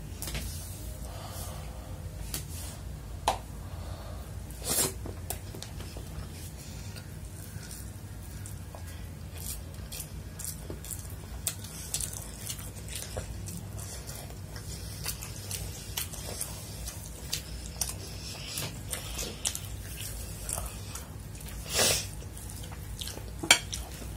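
Close-miked eating sounds: fingers squishing and mixing chicken fried rice on a plate, and chewing, heard as scattered small clicks and wet smacks. A few louder smacks come near 5 s and near 22 s, over a faint steady low hum.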